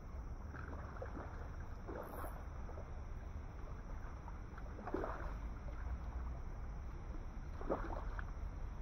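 Water splashing in irregular bursts as a hooked carp thrashes at the surface of the pond beside a landing net, over a steady low rumble.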